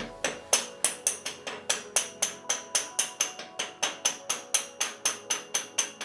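A hand mallet tapping steadily on a bicycle stem, about four light blows a second, each with a short high metallic ring, to drive the repaired stem into place on the fork.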